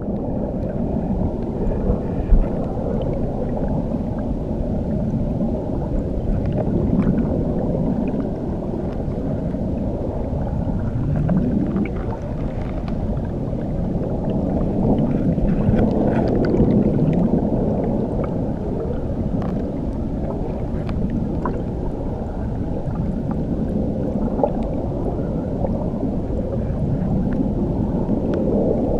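Muffled underwater rumble of a waterfall heard from below the surface: a steady low churning wash with slow swells and faint scattered bubble clicks.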